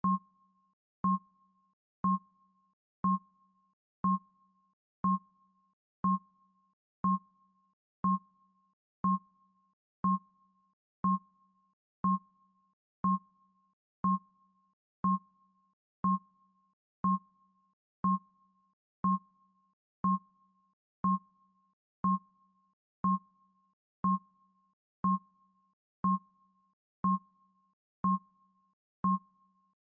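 Countdown timer's electronic tick sound effect: a short beep about once a second, each a low tone and a higher tone together, sharply struck and quickly fading, marking off the seconds.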